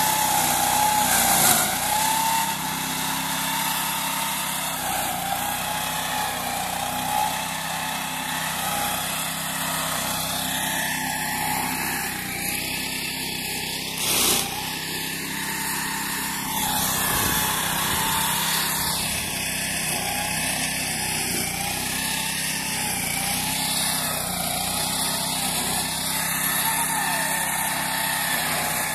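Engine of a prototype meadow mowing machine with a chain shredding attachment, running steadily under test. Two brief louder hits come about a second and a half in and about halfway through.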